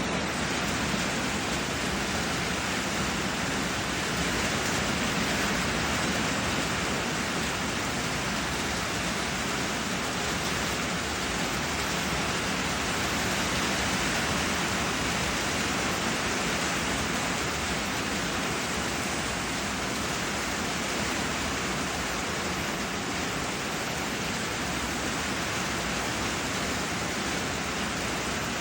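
Steady rain: an even, unbroken hiss with no separate events.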